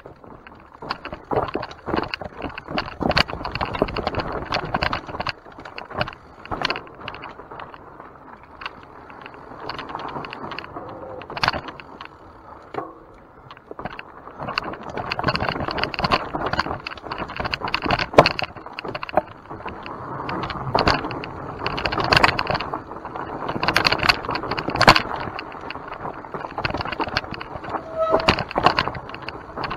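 Mountain bike being ridden over a rough dirt trail: tyre noise with irregular metallic rattling and clattering from the bike, in louder bursts over bumps.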